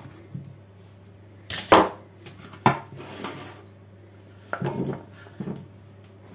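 A knife and a wooden chopping board handling cut pumpkin, and pumpkin chunks tipped from the board into a glass bowl: a few separate knocks and clatters, one at about two seconds, another near three seconds, and a short cluster around five seconds.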